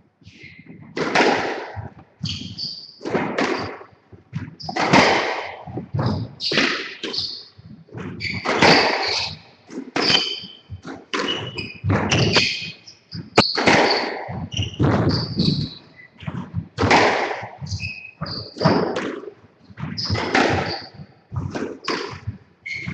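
A squash rally: a rubber squash ball struck by rackets and smacking off the court walls again and again at an uneven pace, each hit echoing around the court.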